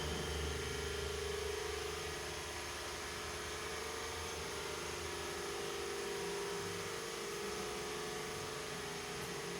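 A steady mechanical hum: one constant droning tone over an even hiss, with a low rumble that fades away in the first couple of seconds.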